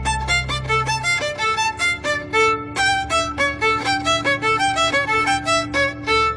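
Music led by a fast violin melody of short, separate notes, several a second, over a low held bass note that stops about a second in.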